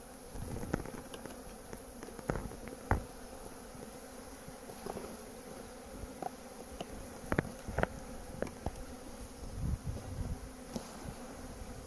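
Honeybees buzzing steadily around an open hive, with scattered short sharp clicks and knocks as a metal hive tool prises the wooden frames apart.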